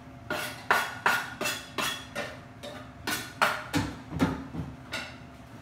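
A series of sharp knocks or taps in two quick runs of about six each, roughly two or three a second.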